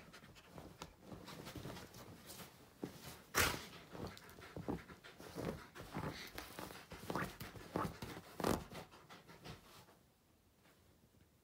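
Wolf dog digging and pawing at a fleece blanket on a bed: irregular scraping and rustling of fabric, the loudest stroke about a third of the way in, with the dog panting. The digging dies down near the end as it settles.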